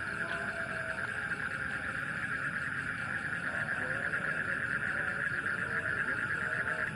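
Night chorus of frogs: a dense, steady, rapidly pulsing trill, with scattered lower calls from other frogs.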